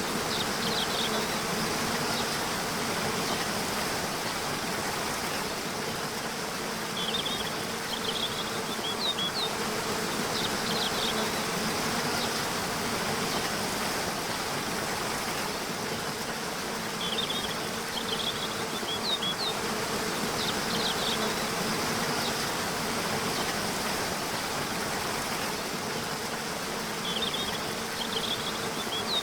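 Waterfall rushing steadily, with a steady low buzz under it. Short clusters of bird chirps come roughly every ten seconds, near the start, about halfway through and near the end.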